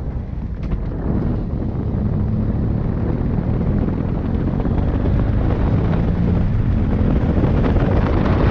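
Motorcycle engine running under way, with heavy wind buffeting on the microphone.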